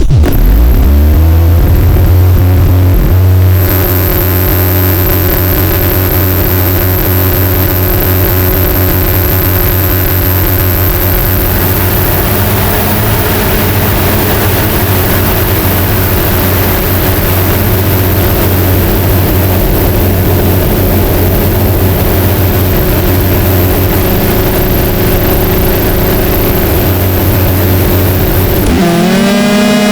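Circuit-bent feedback-loop guitar pedal, an EQD Life clone and a DOD Carcosa fuzz clone routed back into each other, self-oscillating. It gives a loud, steady low buzzing drone with rough noise over it. Near the end it switches suddenly to a clearer pitched tone that slides up and then holds.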